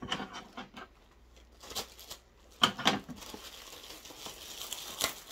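Plastic packaging crinkling and a cardboard shipping box rustling as items are handled and lifted out, with a few sharp clicks and knocks. The crinkling turns steadier in the second half.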